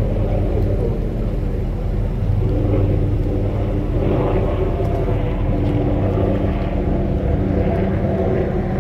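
A vehicle engine running steadily: an even low rumble with a constant hum.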